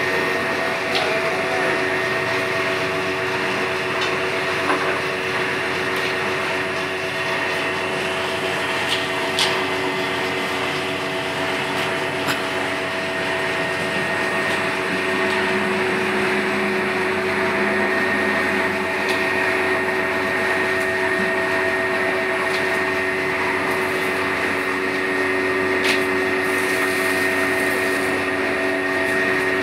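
A large motor-driven processing machine running steadily: a constant hum with a few fixed whining tones over a noisy mechanical rush, and a few faint clicks now and then.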